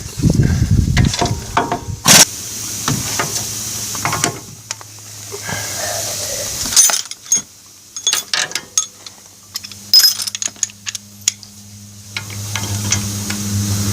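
Metal tools clinking and knocking against truck parts during disassembly, with a few sharp impacts. A steady low machine hum comes in near the end.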